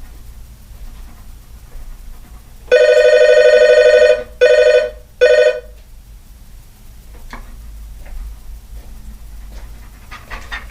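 Doorbell ringing as a visitor calls at the door: one long ring of about a second and a half, then two short rings.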